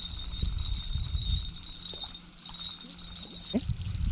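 Steady, high-pitched insect chirring, such as crickets, under low, uneven rumbling and knocking.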